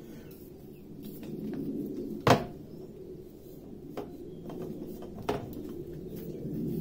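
Handling knocks and clicks as the parts of an MSR Windburner backpacking stove and its gas canister are fitted together and set down on a tabletop. There is one sharp knock about two seconds in and lighter clicks later, over a steady low hum.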